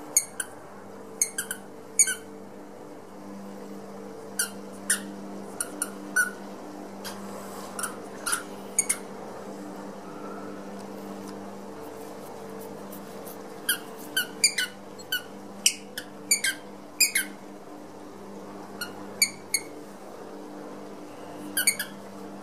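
A small squeaky ball being chewed by a Jack Russell-type terrier: short, high squeaks in quick bursts, with a pause of about four seconds midway and a dense run after it. A steady low hum lies underneath.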